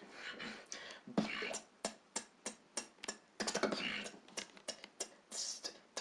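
Solo human beatboxing, faint and thin as heard over a voice-chat connection: a quick rhythm of sharp clicks and hissy hits with little bass.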